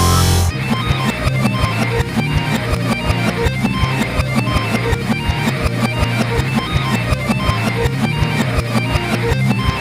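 Dark MIDI pizzicato string notification melody played in reverse: a held chord breaks off about half a second in, and a fast, even run of short plucked notes follows over a repeating low bass line.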